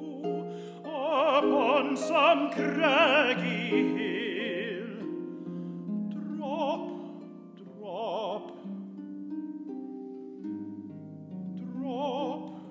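Classical tenor singing with vibrato over concert harp accompaniment. The voice is loudest in the first few seconds, then comes in shorter phrases while the harp carries on.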